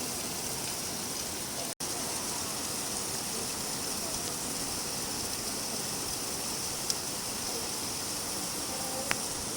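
Steady rain falling, an even hiss of many drops. The sound cuts out for an instant about two seconds in, and two single sharp drip ticks stand out near the end.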